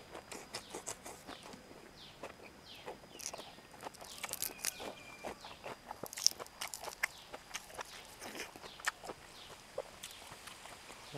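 Close-miked eating: irregular wet chewing and lip-smacking with crunchy bites of raw greens, and leaves rustling as herbs are torn off a bunch. A faint steady high tone runs underneath.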